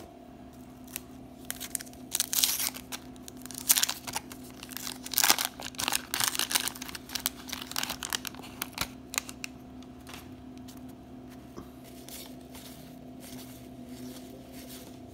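Wax-paper wrapper of a baseball card pack being torn open and crinkled, in loud bursts over roughly the first seven seconds. After that come softer rustles and clicks of the cards being handled, over a faint steady hum.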